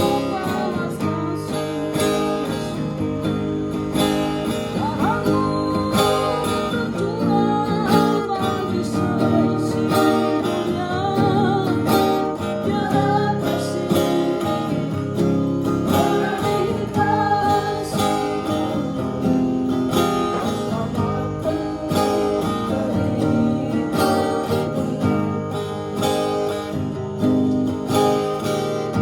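Music: a song led by strummed acoustic guitar, with a melody line that may be sung, over a steady beat.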